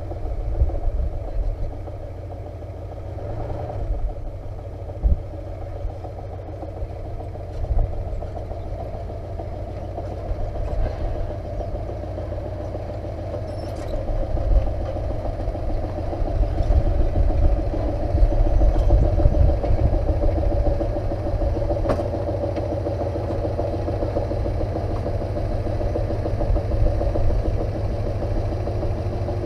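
Ford 4x4 pickup's 351 Windsor V8 running at low speed as the truck crawls through sand and brush, growing louder about halfway through as it comes nearer.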